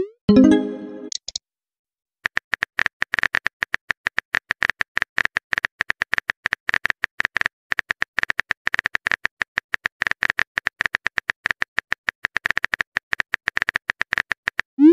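Texting app's keyboard sound effect: rapid, uneven typing clicks as a message is typed out, starting about two seconds in. Just before them, a short rising swoosh and chime as a chat message is sent.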